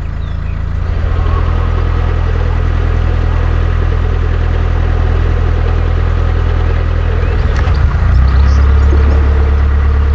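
Narrowboat engine running under way, a steady low-pitched note that grows louder about a second in and shifts to a different, stronger note about eight seconds in.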